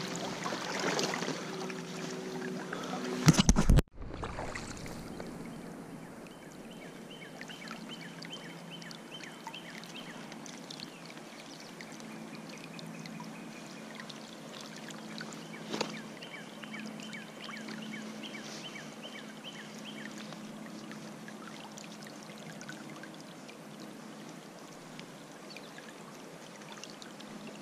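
Creek water running steadily around a wading angler, with some splashing in the first few seconds as a trout is handled in a landing net. There is one loud knock about three and a half seconds in.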